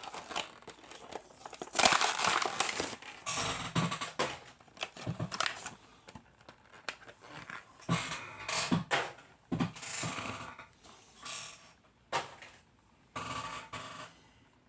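Plastic and cardboard toy-car packaging being handled, crinkled and torn open by hand, in irregular bursts of crackling and rustling.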